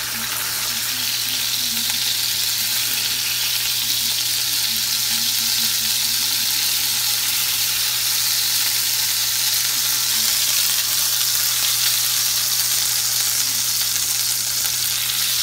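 Eggs frying in avocado oil in a nonstick skillet, a steady sizzle that doesn't let up.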